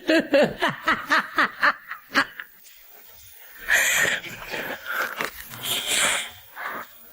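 A person laughing hard: quick repeated pitched "ha" pulses, about four a second, for the first couple of seconds, then breathless, wheezing laughs.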